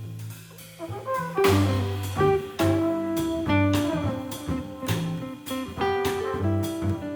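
Jazz quartet of trombone, guitar, bass and drum kit playing, the trombone holding melody notes over walking bass and drum and cymbal strokes.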